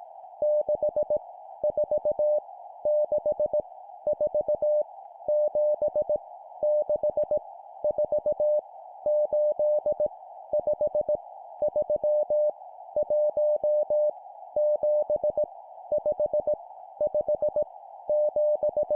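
Morse code practice tone: a single steady mid-pitched tone keyed on and off at 17 words per minute, sending random numbers as short groups of dots and dashes separated by brief pauses. A steady narrow hiss runs under the tone throughout.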